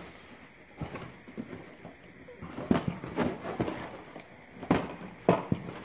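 Gloved hands rummaging through a cardboard box: plastic disc cases clacking together and cardboard rustling. The sharper clacks come mostly in the second half.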